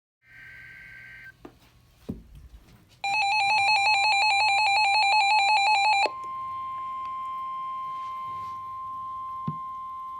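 Emergency alert tones from a weather radio broadcast. A short warbling burst of data tones comes first. About three seconds in, a loud, rapidly pulsing electronic alarm beep starts and lasts about three seconds. Then comes a steady single-pitch alert tone near 1 kHz, the NOAA Weather Radio warning tone that comes before a Tornado Watch message.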